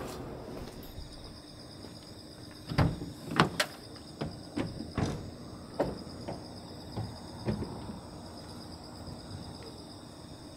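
Insects chirping steadily in a high, pulsing drone, with a run of irregular knocks and thuds, the loudest about three and a half seconds in.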